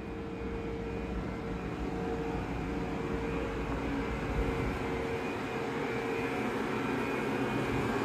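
Izu Kyuko Resort 21 electric train at the station: a steady mechanical hum with a held mid-pitched tone, slowly growing a little louder.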